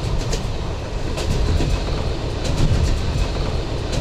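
Passenger train running along the track, heard from inside the carriage: a steady low rumble with scattered clicks from the wheels on the rails.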